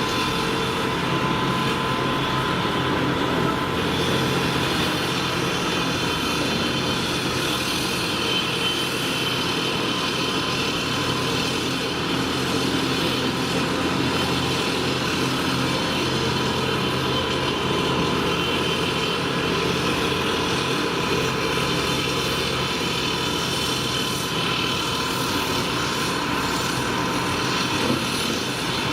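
Volvo EC300D tracked excavator at work: its diesel engine runs steadily under load, with a steady whine above it.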